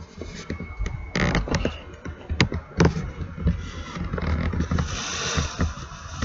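Irregular clicks, knocks and scraping: handling noise as a hand-held camera is moved about, with some rustling.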